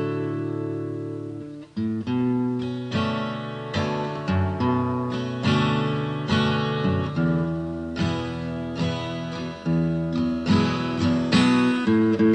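Background music on acoustic guitar: chords strummed and plucked in a steady rhythm, with the chord changing every second or two.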